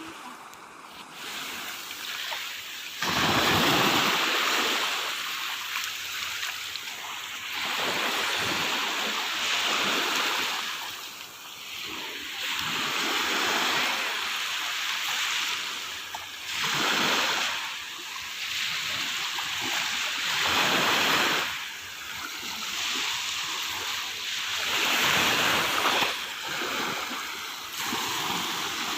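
Sea waves washing onto the shore, each one swelling and fading every few seconds.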